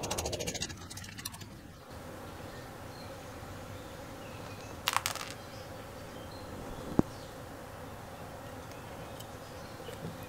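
Small metal lawnmower parts being handled while a threaded rod with nut and washers is put together. A whirring dies away in the first second or two, then there is a short metallic clink about five seconds in and a sharp click about seven seconds in. A faint steady buzz runs underneath.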